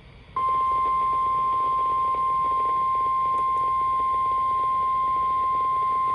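NOAA Weather Radio 1050 Hz warning alarm tone: a single loud, steady tone that switches on about half a second in and holds unbroken, over a faint hiss. It is the attention signal that announces a weather warning broadcast.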